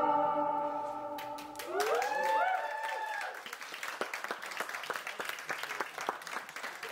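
The last note of the dance music fades out, then a small seated audience whoops and breaks into applause, with scattered hand claps running on.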